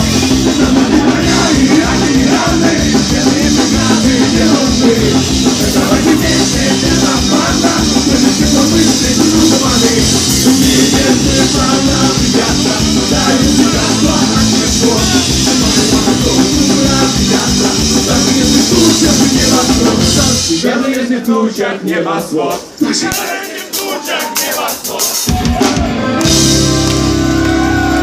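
Live rock band playing, with drums, electric guitars, tambourine and singing. About twenty seconds in, the drums and bass drop out for a few seconds, then the band comes back in on a held chord.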